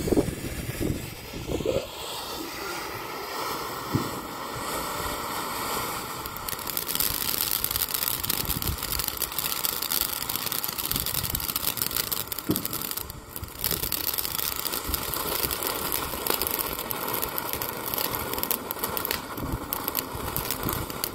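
Phantom Fireworks Pixie Dust fountain firework spraying sparks with a steady hiss. It starts with a sudden burst at the very beginning, and about six seconds in the spray turns brighter and harsher, full of fine crackling, with a brief lull near the middle.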